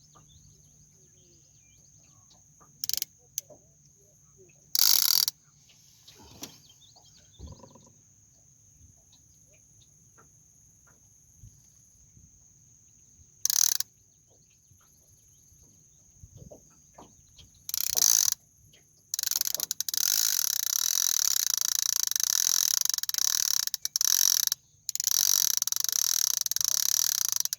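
Fishing reel's line-out clicker buzzing as line is pulled off: a few short runs, then a long near-continuous run over the last third with one brief pause, the sign of an alligator gar taking the bait and running. A faint steady high insect drone underneath.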